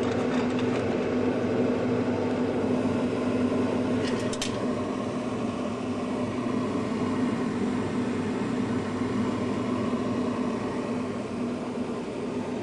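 Steady electric hum of a running freezer, even and unbroken, with a brief crackle of ticks about four seconds in.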